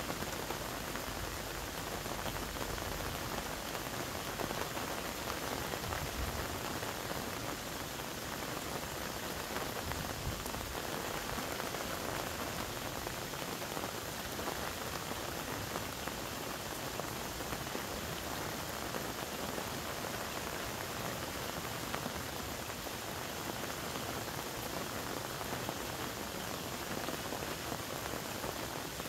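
Steady, even patter of falling water.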